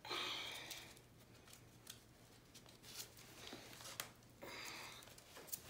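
Faint rustling and rubbing of twisted rush cord being handled as a joining knot is pulled tight. There is a short rustle at the start and another about four and a half seconds in, with a few light clicks between.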